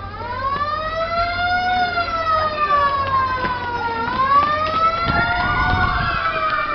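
Siren wailing, its pitch slowly rising and falling in cycles of about four seconds: the alarm signal for a fire drill.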